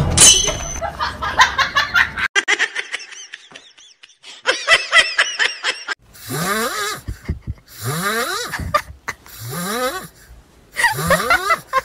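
Dubbed comic vocal sound effects, laugh-like. In the second half the same sound repeats four times, each burst sweeping upward in pitch.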